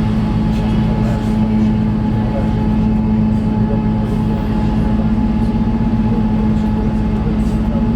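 Diesel passenger train in motion, heard from on board: a steady running noise with a constant low hum and a fainter higher tone.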